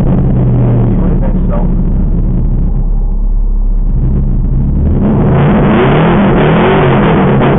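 Chevrolet Camaro SS's 6.2-litre V8 heard from inside the car through the dash cam's microphone, running steadily at low speed. About five seconds in it gets louder, with the pitch rising and falling as the car accelerates.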